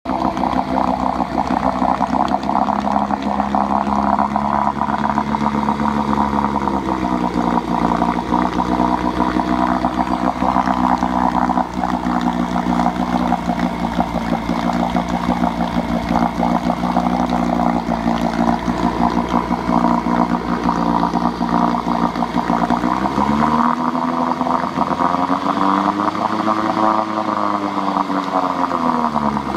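1970s Chrysler 5 hp two-stroke outboard motor running in a test bucket of water. It runs steady, dips slightly in speed about seven seconds in, then is throttled up and eased back down near the end.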